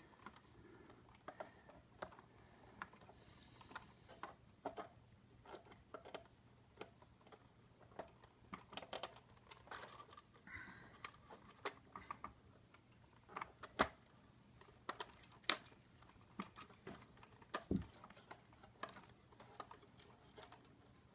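Faint, irregular small clicks, taps and rustles of a plastic Bruder toy backhoe loader being handled and freed from its packaging, with wire cutters cutting the wire ties that hold it. A sharper click about fifteen seconds in is the loudest.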